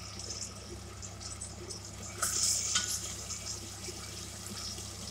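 Ginger frying in hot oil in a steel pot, a steady crackling sizzle. About two seconds in the sizzle flares louder for under a second as sliced garlic goes in and a utensil stirs it, with a sharp click of the utensil in the pot. A low steady hum runs underneath.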